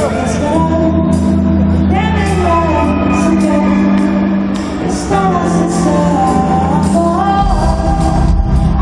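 Live pop song played by a band over a concert PA, with a woman singing the melody into a microphone and drums keeping a steady beat; the bass line shifts deeper about seven seconds in.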